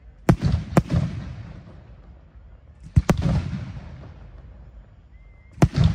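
Aerial firework shells bursting: two sharp bangs within the first second, another about three seconds in and a close double bang near the end, each followed by a long echoing rumble that dies away.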